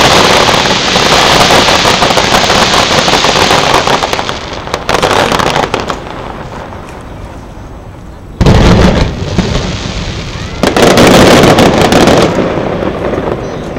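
Fireworks: dense crackling at first, dying away about five seconds in. Then a sudden loud bang about eight seconds in and another about ten and a half seconds in, each followed by crackling.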